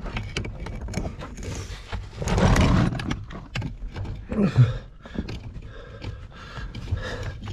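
Person crawling backwards through a tight lava tube: clothing and gear scraping and knocking on the rock, with a louder, longer rustle a couple of seconds in and a short grunt falling in pitch about halfway.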